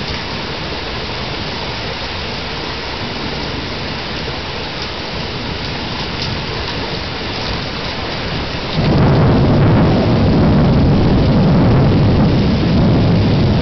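Steady rain, then about nine seconds in a loud roll of thunder breaks in suddenly and keeps rumbling, deep and heavy, over the rain.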